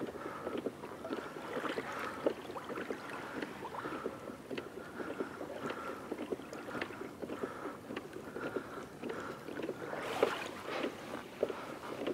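Small ripples lapping against a kayak hull at the waterline: a busy patter of little slaps and trickles, with a louder splashing rush about ten seconds in.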